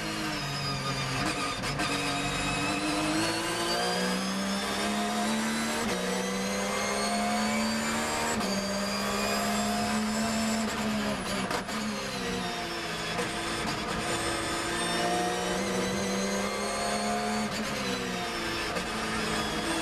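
Porsche 911 GT3 R race car's 4.0-litre flat-six at full racing load, heard from inside the cockpit. Its pitch climbs and steps down on quick upshifts as the car accelerates, then drops away under braking and downshifts, twice.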